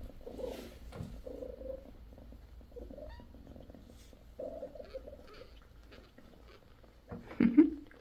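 Cat purring, a steady low rumble with soft, uneven swells. A brief, much louder sound comes near the end.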